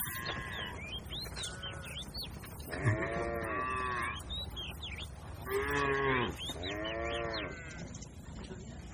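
Cattle mooing: a series of drawn-out moos, each rising and falling in pitch. The loudest comes about three seconds in, and two more follow close together a couple of seconds later.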